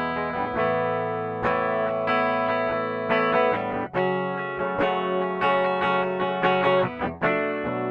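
Epiphone SG G-400 electric guitar played clean on its bridge pickup: a fast passage of picked notes, with a brief gap about seven seconds in.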